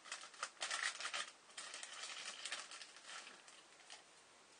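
Clear plastic bag and paper wrapping crinkling and rustling as a small package is unwrapped by hand, in irregular bursts that die down in the last second.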